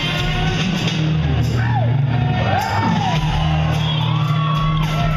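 Live rock band playing electric guitar, bass and drums, with a high, wailing voice sliding up and down in pitch through the middle of the passage.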